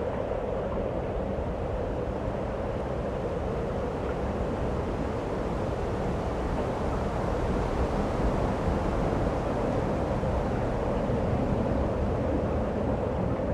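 Strong wind buffeting the microphone in a continuous low rumble, over the steady rush of surf.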